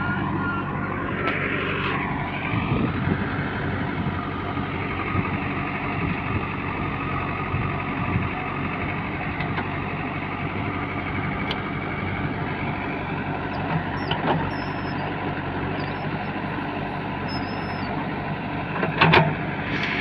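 JCB 3DX backhoe loader's diesel engine running steadily while its rear backhoe digs soil, with a few sharp clanks from the bucket and arm, the loudest near the end.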